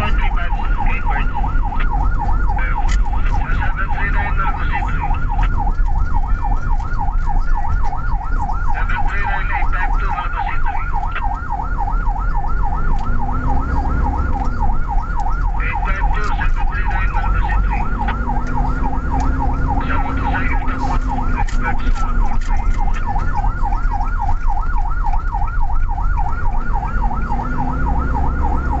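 Ambulance siren on a fast yelp, rising and falling rapidly over and over without a break, heard from inside the ambulance over the rumble of its engine and the road.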